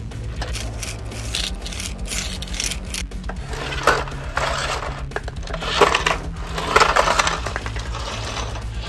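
Small plastic cargo boxes and a plastic crate rattling in the bed of a toy RC pickup and clattering onto concrete as they fall out, with several sharp knocks about four, six and seven seconds in.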